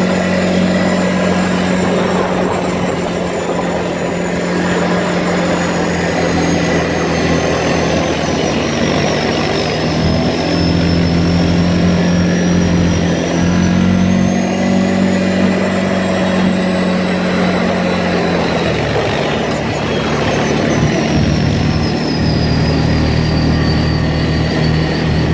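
ATV engine running steadily under way on a rough dirt track, its note shifting about two-thirds of the way through. A thin high whine slides down and back up in pitch over it.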